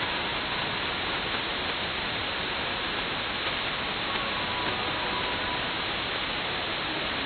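Shortwave receiver audio from a Perseus SDR tuned to 6925 kHz: steady static hiss with a few faint short tones barely showing through. This is the very weak reception of a 40-watt pirate station buried in the band noise.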